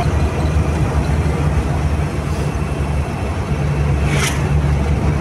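Steady low rumble of a car's engine and tyres, heard from inside the cabin while driving. About four seconds in there is a brief whoosh as a truck passes close by.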